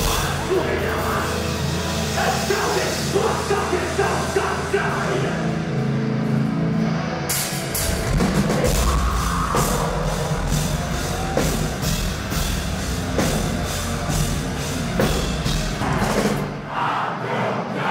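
Heavy metal music with a drum kit; about seven seconds in it changes to a brighter section with drum and cymbal hits on a steady beat.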